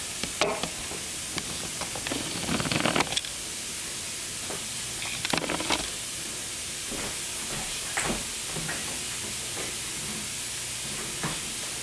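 A steady hiss, with a few soft rustles and knocks of bedding as a baby moves on a floor bed.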